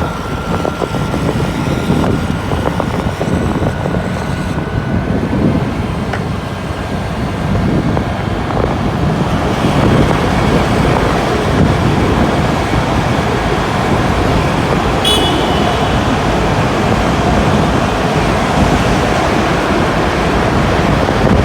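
Steady road and traffic noise from a motor scooter riding into a road tunnel, a loud rumble heaviest in the low end. A brief high-pitched horn beep comes about two-thirds of the way through.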